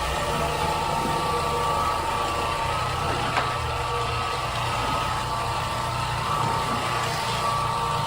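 A floor-cleaning machine's motor running steadily, with a low hum and a steady whine.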